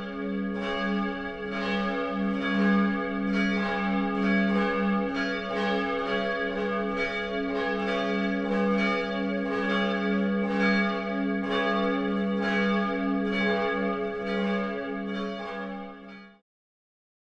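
A church bell ringing, struck steadily about every two-thirds of a second, each stroke ringing on into the next over a deep sustained hum. It cuts off suddenly near the end.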